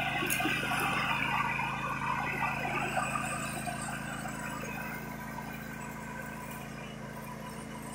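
John Deere riding lawn mower's engine running steadily as the mower drives across the grass, growing fainter as it moves away.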